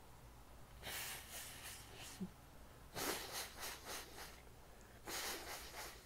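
Three heavy breaths through a hay-fever-congested nose, about two seconds apart, each made of a few quick pulses.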